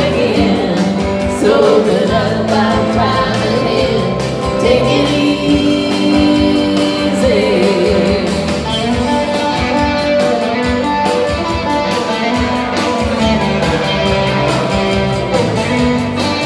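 Live band music: two women singing a song with electric guitar and Roland Juno-D synthesizer keyboard accompaniment, playing without a break.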